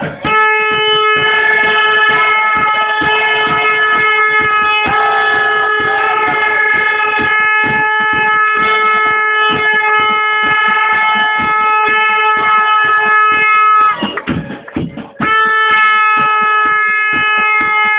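A horn sounding one loud, steady, unwavering note for about fourteen seconds. It breaks off for about a second, then sounds the same note again.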